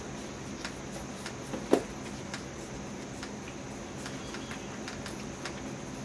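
Whitetail fawns suckling from a bottle rack: scattered small, irregular sucking and smacking clicks, with one short, louder sharp sound about two seconds in.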